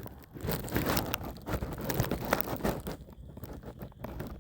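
Irregular small clicks and crackles close to the microphone, a second or so apart and at times in quick runs.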